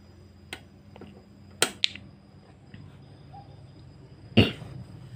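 A few sharp clicks in the first two seconds and a louder knock about four seconds in, from handling and switching on a Piro MW-88 swiftlet sound player, over a faint steady electrical hum. The swiftlet calls have not started yet.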